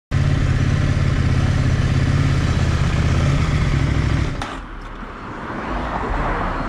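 CFMOTO 800NK motorcycle engine running at a steady idle; about four seconds in it drops away abruptly, leaving a softer rushing noise that swells again.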